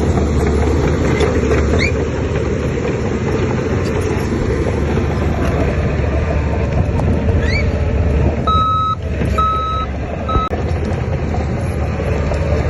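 Heavy earthmoving machinery engine running steadily under load, with a reversing alarm beeping three times about two-thirds of the way in, the signal of a machine backing up.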